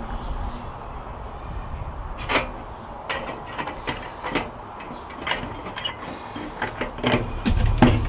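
Irregular small metallic clicks and taps, about ten of them, as a small folding metal pocket stove is handled, with a low rumble near the end.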